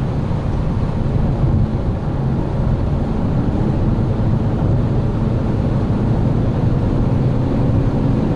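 Cabin noise of a Volkswagen Passat GT with the 190 hp TDI diesel, heard from inside while driving: a steady low road and tyre rumble with a faint engine drone.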